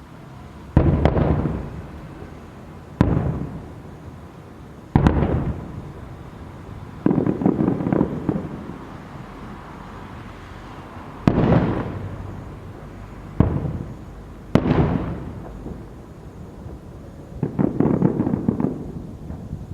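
Aerial fireworks shells bursting: about six sharp bangs, each trailing off in a rolling rumble, with longer crackling salvos around seven seconds in and again near the end.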